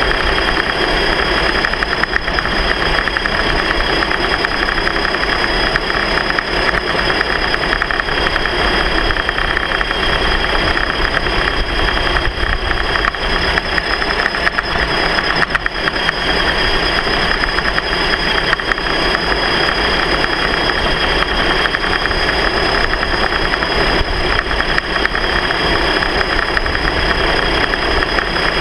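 Steady motor noise from the vehicle carrying the camera at a running pace, with a constant high whine over it.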